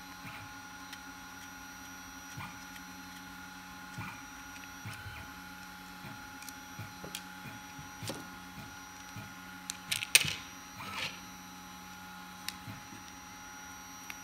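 Small clicks, taps and scrapes of a precision screwdriver working the screws of a plastic 3D printing pen shell while the pen is handled, with a short cluster of louder clicks and rattles about ten seconds in, over a steady background hum.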